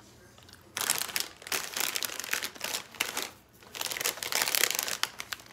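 Crinkly plastic chip bag being picked up and handled, rustling loudly in two bouts, the first about a second in and the second after a short pause.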